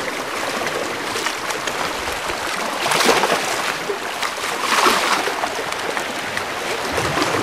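Sea water lapping and washing steadily, with two louder splashing surges about three and five seconds in.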